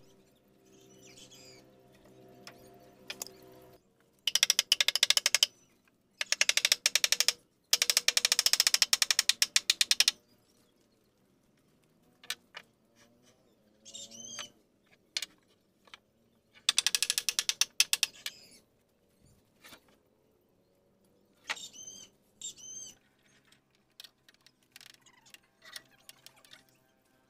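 Several bursts of rapid ratcheting clicks, each lasting one to two seconds, with a few single knocks and short bird chirps in between.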